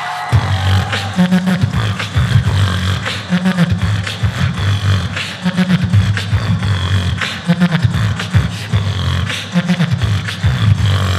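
Beatboxing into a microphone, amplified: rapid kick, snare and hi-hat sounds over a deep bass line that repeats in a pattern about every two seconds.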